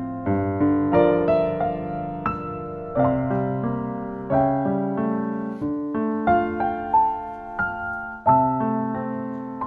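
Background piano music: single notes and chords struck at an unhurried pace, each ringing and fading.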